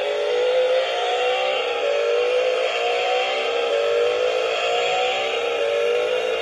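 Toy RC sports car's built-in speaker playing an electronic engine-revving sound effect: a rising rev that drops back and repeats about every 1.3 seconds, five times over.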